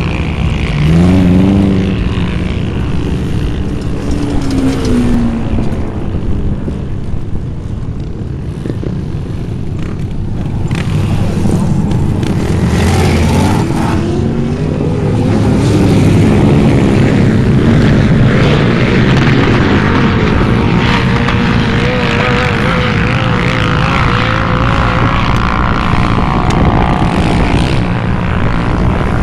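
Off-road sand rail and quad engines revving hard. Several engines overlap, their pitch rising and falling as they accelerate up the dune, over a steady din of other engines.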